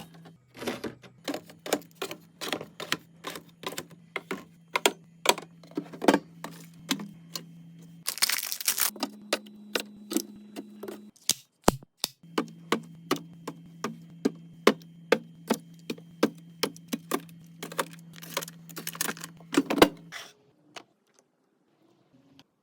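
Restocking a fridge: a quick run of clicks and clacks from containers being set down and handled, over a steady low hum. A loud rustling burst comes about eight seconds in, and the sounds stop a couple of seconds before the end.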